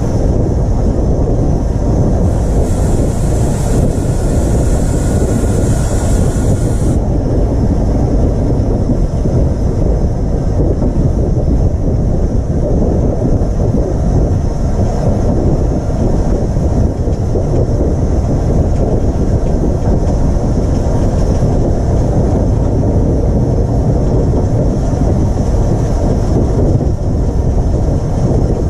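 Taff Vale Railway No.85, a 0-6-2 steam tank locomotive, running along the line, heard on board close to the boiler: a loud, steady rumble of the engine and wheels on the rails. A higher hiss joins from about two seconds in and cuts off suddenly about five seconds later.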